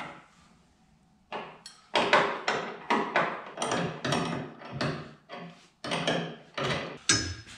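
Metal wrench clicking and clinking against brake line fittings as they are tightened, a quick run of sharp ticks at about three a second that starts about a second in.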